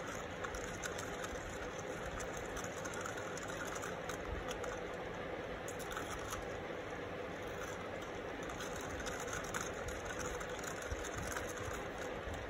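A steady machine-like hum, with faint gritty scraping and ticks from a wooden stick stirring sand into clear epoxy resin in a plastic cup.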